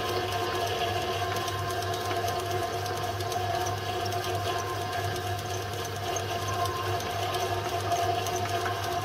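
Home-built Gingery milling machine running steadily with its end mill cutting a flat on an aluminium pulley hub: a constant motor and spindle hum with several steady tones, over a light, uneven cutting noise.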